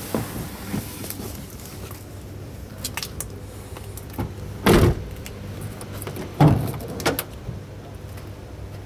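A few knocks and thumps from someone moving through the open doorway of a Mercedes-Benz Sprinter van's cab, with the two loudest about a second and a half apart in the middle, over a steady low hum.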